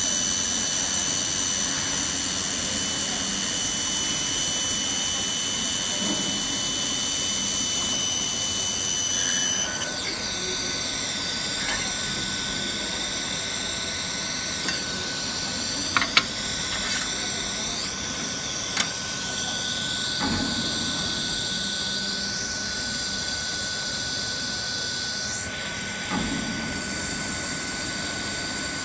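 Handheld fiber laser welding machine running with a steady high-pitched whine and hiss while welding stainless steel sheet. About ten seconds in the whine stops and a quieter single steady tone carries on, with a few sharp clicks.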